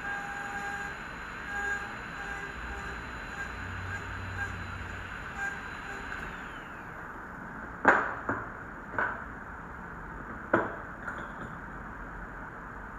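Faint background music over a light hiss fades out about six seconds in. A few sharp clicks and knocks follow, the loudest about eight seconds in and another near eleven.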